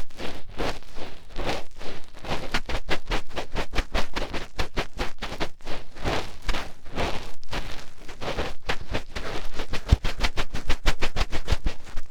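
Fingertips rubbing and scratching in an ear close to the microphone for ASMR finger ear cleaning: fast, uneven rustling scrapes, several strokes a second.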